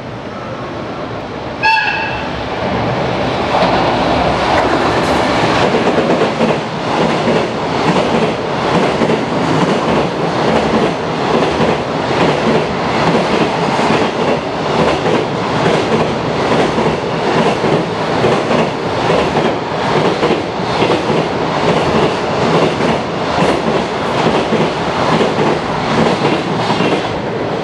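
Container freight train running through a station without stopping. A short horn blast comes about two seconds in, then a long, loud, rhythmic clatter of the wagons' wheels on the rails, which thins as the last wagon goes by near the end.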